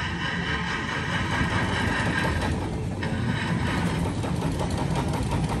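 An engine idling with a steady low rumble and a hiss that comes and goes over it.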